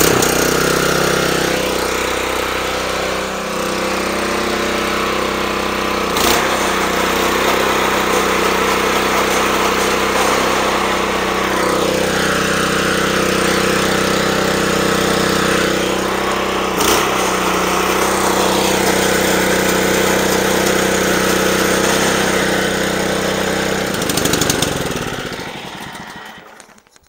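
Honda GX120 engine on a California Trimmer reel mower running steadily after a warm start, with the reel driven through the newly adjusted belt and clutch and spinning on its bedknife without cutting grass, metal on metal. Two sharp clicks come about 6 and 17 seconds in, and near the end the engine is shut off and runs down to a stop.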